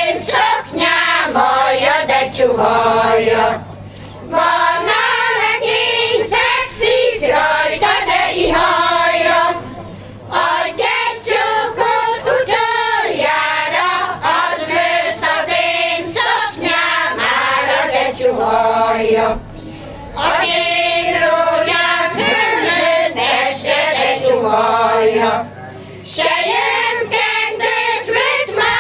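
Women's folk choir singing a Hungarian traditional song, in sung phrases with short pauses for breath between them.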